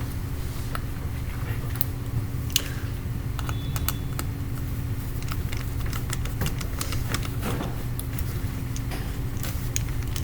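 Scattered light clicks and taps of small parts being handled as an M.2 SSD is fitted and screwed into a Dell Inspiron 3501 laptop. They sound over a steady low hum.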